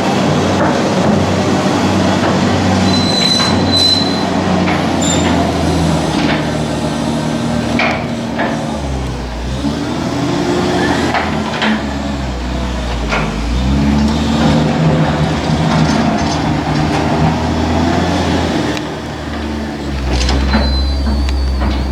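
Diesel engine of a farm machine working under load, its revs rising and falling several times, with occasional clanks and knocks.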